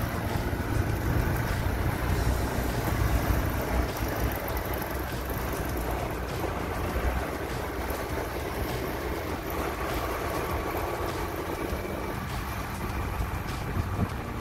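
Two motorcycles riding along a road, their engines running under a steady rumble of wind buffeting the microphone.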